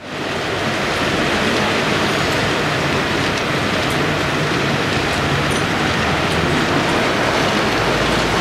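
Steady city street noise, an even hiss without distinct events, fading in at the very start.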